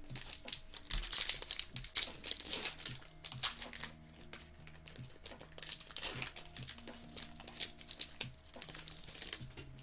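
Foil wrapper of a Bowman Chrome baseball card pack crinkling and tearing as hands rip it open: a dense run of sharp crackles that eases off briefly around four to five seconds in.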